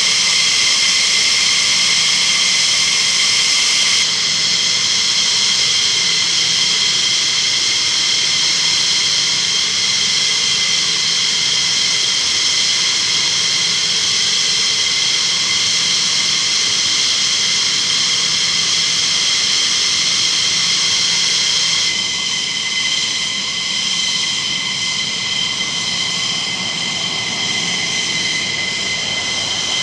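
F-15E Strike Eagle's twin turbofan jet engines idling: a steady high-pitched whine of several tones over a rushing hiss, shifting slightly in level twice.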